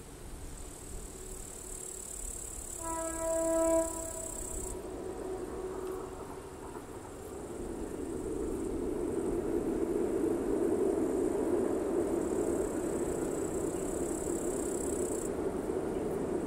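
A single horn blast about three seconds in, lasting about a second. From about six seconds the rumble of an approaching heavy Class 66 (EMD JT42CWRM) diesel freight train crossing a steel railway bridge grows louder, then holds steady. Insects buzz high on and off.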